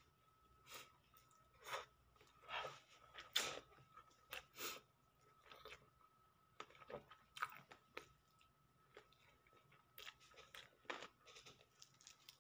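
Faint, irregular chewing and lip-smacking of someone eating rice and fish with her fingers, a scatter of short wet clicks and smacks.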